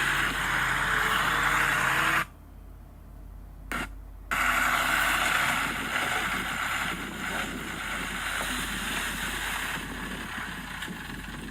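Heavy earthmoving machinery running, with a diesel engine working steadily. The sound cuts off abruptly about two seconds in and comes back about two seconds later.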